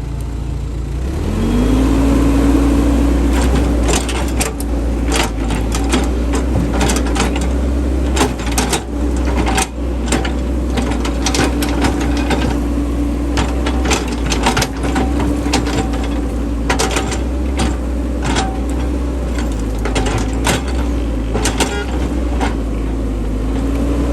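A small electric motor running with a steady whine, spinning up about a second in and winding down at the end, with many sharp clicks and knocks over it.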